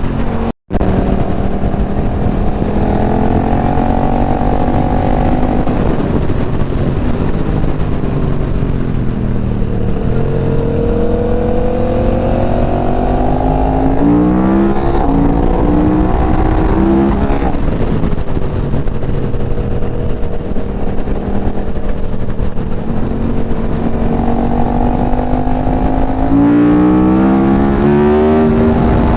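Sport motorcycle engine under way, its note falling and rising with the throttle, with quick bursts of acceleration through the gears about halfway through and again near the end, over steady wind and road noise. The sound cuts out for a moment just under a second in.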